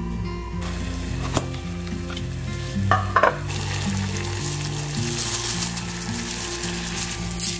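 A few knocks of a saucepan on the stove in the first three seconds, then water at a rolling boil bubbling in the saucepan, with quick oats poured into it near the end.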